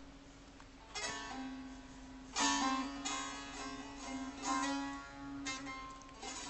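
Instrumental music: a plucked string instrument sounding single ringing notes every second or so over a steady low drone.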